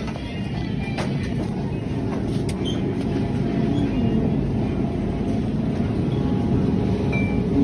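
Steady low rumble of a supermarket's background noise, with a few faint clicks.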